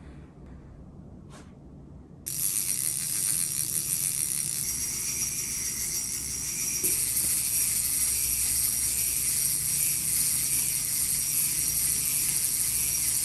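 Fishing reel ratchet clicking so fast it runs together into a continuous buzz, as line is pulled or cranked. It starts about two seconds in after a faint tick and gets louder about halfway through.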